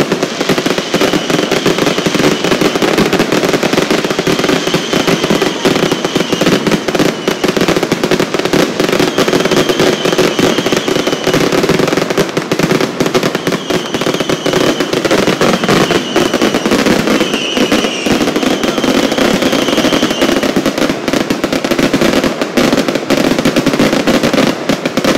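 Fireworks going off in a dense, unbroken barrage of crackles and bangs. A high whistle comes through several times in the middle stretch.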